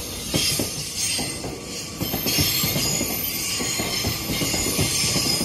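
Seoul Metro Line 2 electric train passing close by, its wheels knocking over the track in quick, irregular succession under a steady high hiss of steel wheels on rail.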